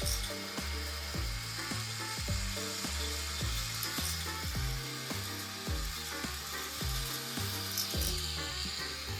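K'NEX roller coasters running: a steady rattling hiss of trains rolling on plastic track and chain lifts clicking. Under it runs a low tune whose bass note changes about twice a second, like background music.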